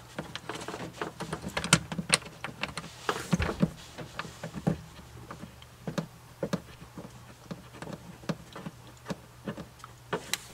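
Irregular clicks and taps of screws and a hand tool being handled as the screws are started into a plastic heater box under a truck's dash, over a faint steady hum.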